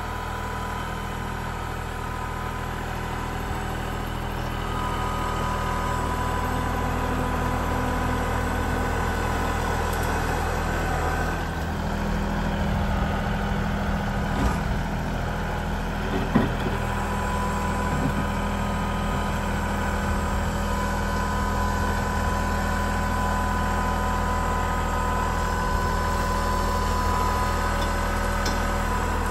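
Kubota L3901 compact tractor's three-cylinder diesel running steadily at about 1700 rpm in low gear while its front loader pushes a pile of wood chips, with a steady whine over the engine.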